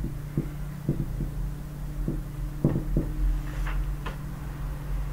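Marker pen writing on a whiteboard: a string of short, irregular taps and squeaks as the strokes are made, over a steady low electrical hum.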